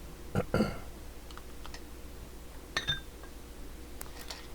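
Sharp clicks and light taps of small parts and wiring being handled and pushed back into place inside an open CB radio: a cluster near the start, one a little before three seconds in, and a couple more near the end, over a faint steady hum.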